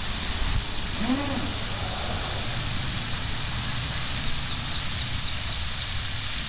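Steady splashing hiss of a pond fountain spray, with wind rumbling on the microphone and a short voice-like call about a second in.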